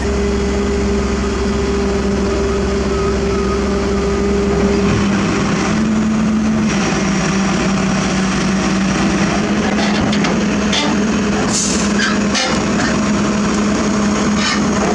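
Heavy diesel engines running steadily, the engine note changing about five seconds in. A few knocks and a short hiss come near the end.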